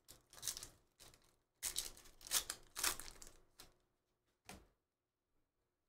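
Foil trading-card pack wrapper being torn open and crinkled by hand: a run of crackly rustles over about three and a half seconds, then one short rustle.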